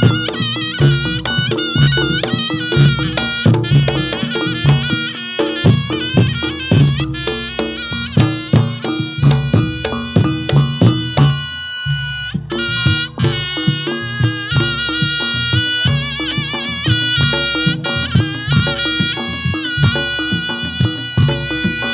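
Reog Ponorogo gamelan music: a slompret (Javanese shawm) plays a reedy, wavering melody over a steady beat of drums and gongs.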